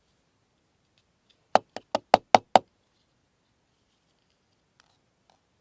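Six sharp knocks in quick succession, about five a second, from a partly disassembled fidget slider being handled.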